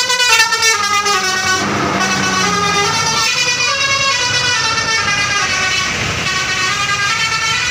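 A bus's 'telolet' multi-tone horn (Basuri type) playing a quick stepped tune of changing notes. About two seconds in it gives way to a busier mix of engine noise and fainter horn tones.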